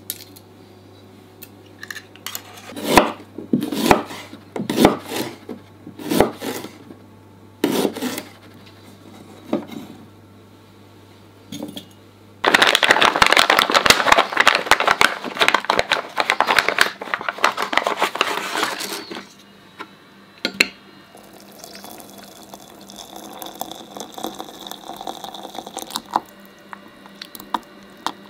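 Whole spices dropped into a porcelain teapot, a string of separate clinks and knocks. A plastic spice packet is then crinkled and torn open for about six seconds.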